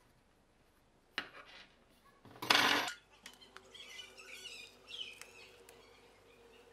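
Small plastic LEGO Technic parts and a rubber band being handled and fitted together: soft clicks and rubbing, with a short loud rustling scrape about two and a half seconds in, then faint high squeaks.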